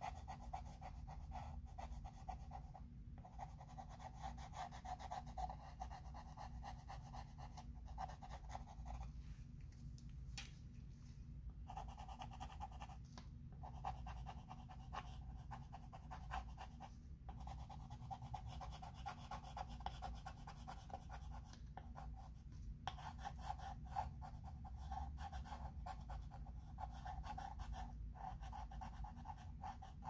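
Chalk pencil scratching on a chalkboard in long tracing strokes, broken by short pauses every few seconds.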